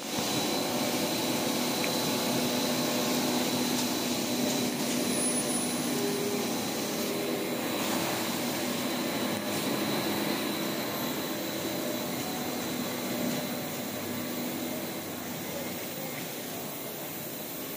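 PP honeycomb board extrusion line running: a steady mechanical hum and hiss of motors and blowers, with a thin constant high whine over it.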